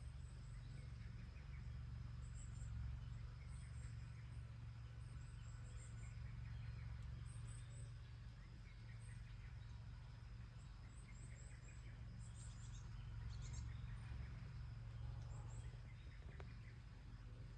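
Faint outdoor ambience: a steady low rumble with small clusters of short, high chirps every second or two.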